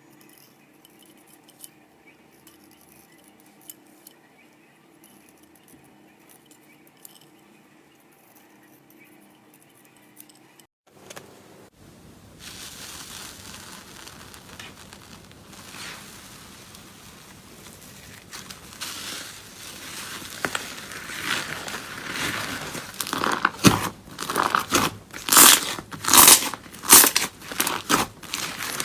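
Slime being worked by hand: faint scattered clicks and pops at first, then, after a cut, a louder crackling and crinkling that builds to a run of loud crackling presses near the end.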